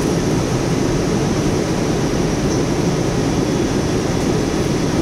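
Steady cabin noise inside a jet airliner during descent: an even, low rush of engine and airflow noise with no changes.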